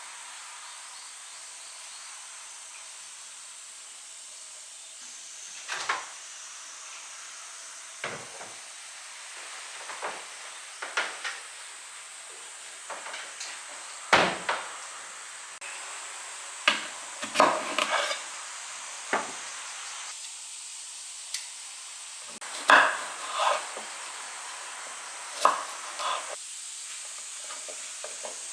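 Kitchen cooking sounds: a steady hiss under scattered short knocks and clatter of utensils against cookware, some in quick little clusters.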